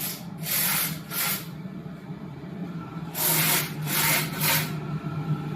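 Diesel air heater burner parts being pushed and scraped together during reassembly: a series of short rubbing scrapes, over a steady low hum.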